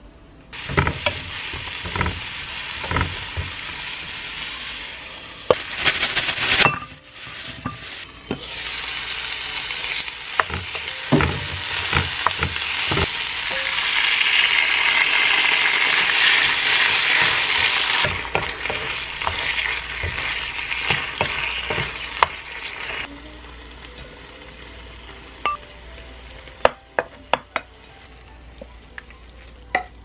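Diced eggplant and mapo tofu sauce sizzling in a nonstick frying pan while a wooden spatula stirs, with repeated knocks of the spatula against the pan. The sizzle is loudest about halfway through and dies down over the last several seconds, leaving a few sharp clicks near the end.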